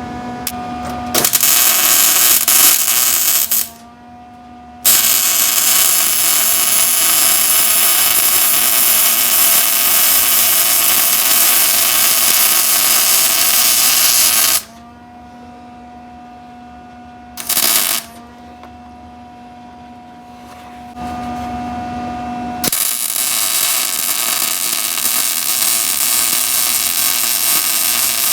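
Arc welding on a steel car frame rail: long runs of steady welding-arc crackle, one nearly ten seconds long, stopping and restarting several times. Between the runs a steady electrical hum is heard.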